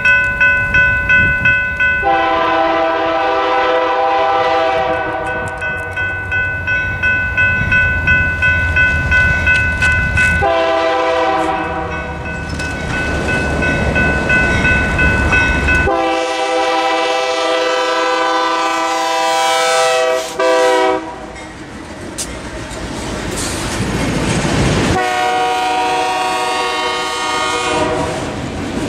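A crossing's General Signals Type 3 electronic bell rings at about two strokes a second. Then the horn of an approaching freight locomotive, a GE AC44CW, blows a series of long and short blasts as it reaches the crossing. From about two-thirds of the way in, the rumble and clatter of the freight cars' wheels on the rails take over as the train passes.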